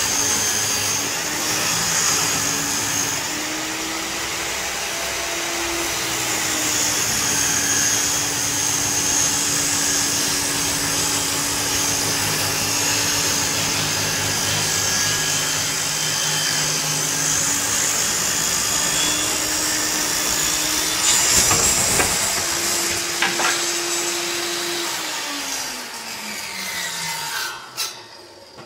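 Benchtop table saw ripping a long reclaimed-wood board: steady motor whine with the rasp of the blade cutting, the pitch sagging slightly under load and recovering. Near the end the motor's pitch falls steadily as the saw winds down.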